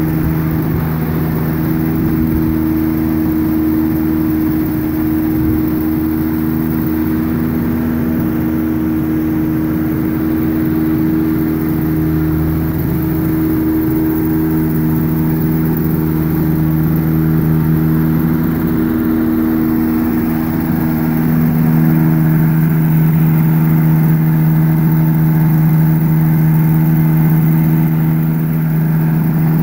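Steady machine drone: a running motor or engine holding one pitch, a little louder from about two-thirds of the way in.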